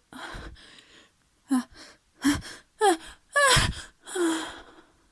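A person's sneeze build-up: a run of short, gasping breaths, several voiced with a falling "ah" pitch and growing louder, as the tickle in the nose builds toward a sneeze.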